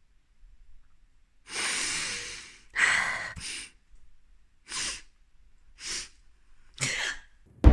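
A person's breathing: about six separate breathy intakes and exhales. The first is about a second long and the loudest comes about three seconds in.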